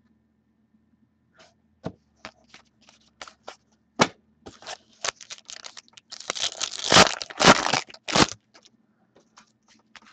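Hockey trading cards handled and shuffled through by hand: scattered light clicks and taps, then a denser scraping stretch a little past the middle as cards slide against one another.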